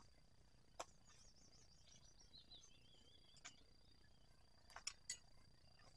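Near silence outdoors with a faint bird twittering from about a second in to about three seconds, and a few soft clicks, three of them close together near the end.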